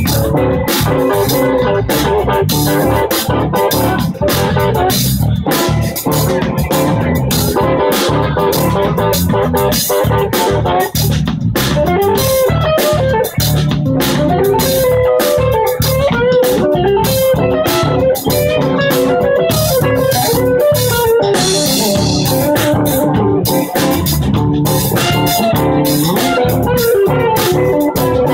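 Live band jamming, with guitar prominent over bass and drums.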